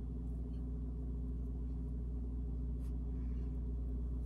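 Steady low electrical hum of a running appliance, with a faint tick about three seconds in.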